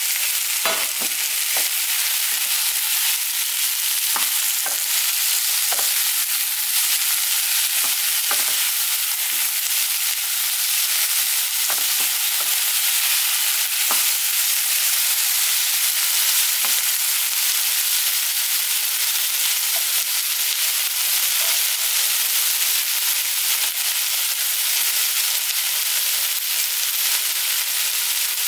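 Chicken pieces with sliced onion and garlic sizzling steadily in oil in a nonstick pan. Occasional light knocks are heard as the food is stirred with a wooden spoon, mostly in the first half.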